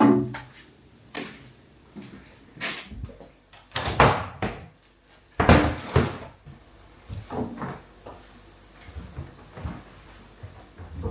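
Household clatter: cupboard doors or drawers knocking open and shut, with a string of clunks and two longer scraping bursts of things being handled and moved, in a small room.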